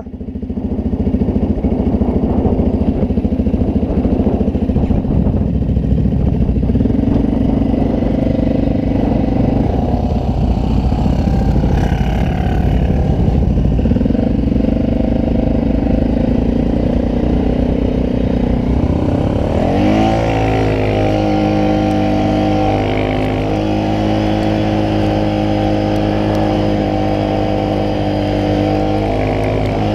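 ATV engine running continuously while being ridden through snow, with the revs rising and falling. About two-thirds of the way through, the revs climb and then hold at a steady pitch.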